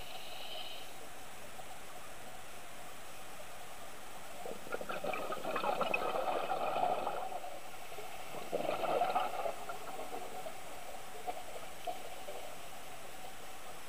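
Scuba regulator exhaust bubbles heard underwater: a steady hiss broken by two bubbling bursts, a longer one about five seconds in and a shorter one near nine seconds.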